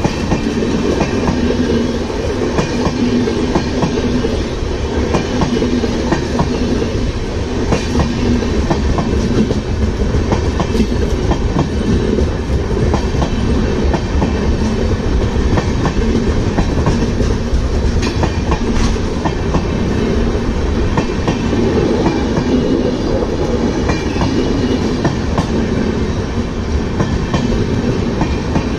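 Indian Railways passenger coaches rolling past: a steady, loud rumble of wheels on the rails with frequent clicks of wheels passing over rail joints.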